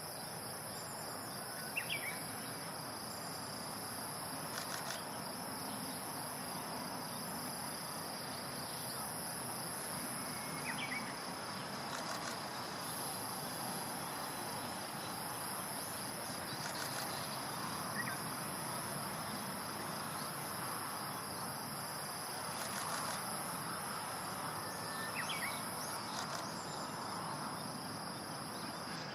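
Outdoor ambience: a steady high-pitched, insect-like buzz over a hiss of background noise, broken by a few brief, faint high chirps spaced several seconds apart.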